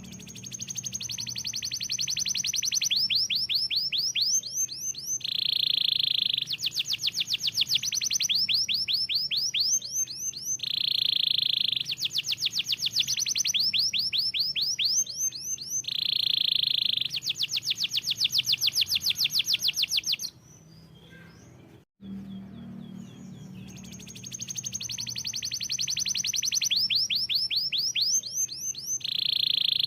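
Domestic canary singing: fast trills of rapidly repeated rising notes alternating with a steady buzzing roll, the phrases coming round about every five seconds. The song drops away briefly past the middle, cuts off sharply, then starts over with the same phrases as at the start, as if a recording were looped.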